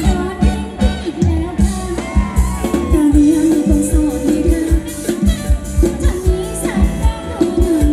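Live band playing upbeat Thai ramwong dance music, a singer over a steady drum beat.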